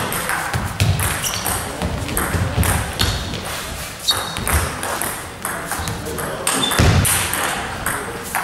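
Table tennis rally: the celluloid ball ticking off bats and table in quick alternation, a steady run of sharp clicks about every half second to a second, ringing in the hall.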